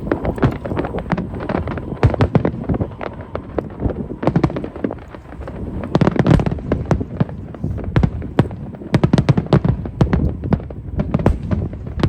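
Aerial fireworks shells bursting overhead in a continuous barrage of sharp bangs and crackles over a low rumble, with the densest runs of bangs about halfway through and again near nine to ten seconds in.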